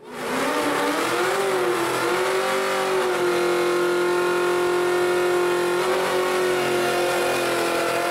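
A car engine revving up over the first second or so, then held at a steady high pitch, with a brief dip about six seconds in.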